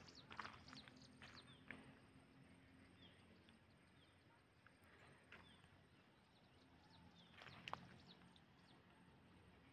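Near silence: faint outdoor quiet with scattered soft clicks, a cluster in the first two seconds and another about three quarters of the way in, and a few faint high chirps.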